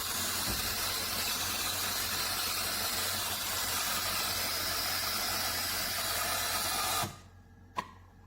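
Steam hissing steadily from a De'Longhi Rivelia automatic espresso machine, cutting off suddenly near the end, followed by a single click.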